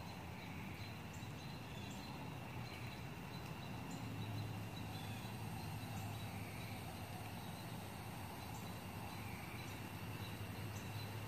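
Evening outdoor ambience: insects calling in a steady high-pitched chorus with faint repeated calls, over a steady low hum that grows louder about four seconds in.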